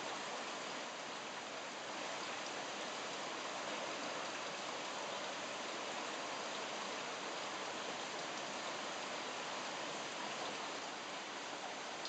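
Hot spring water running steadily from the source through wooden troughs: an even, unbroken rush of flowing water.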